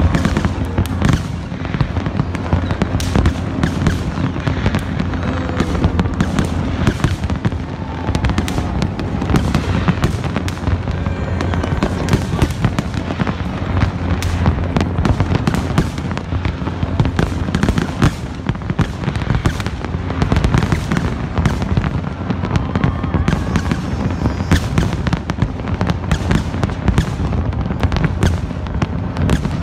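Fireworks display: a dense, unbroken barrage of bangs and crackles with a continuous low rumble beneath.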